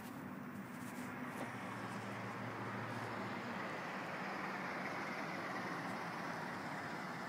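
Steady rushing rumble of a passing vehicle, swelling slowly to its loudest a little past the middle and easing off slightly near the end.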